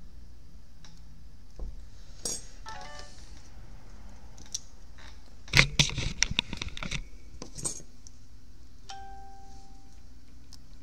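Small metal tools and parts clicking and clinking on a repair bench, with a dense burst of clattering handling about five and a half seconds in, the loudest moment. A short electronic beep sounds about nine seconds in.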